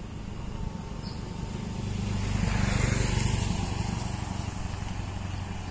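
A motorcycle passing by. Its engine gets louder to a peak about halfway through, then fades as it rides away.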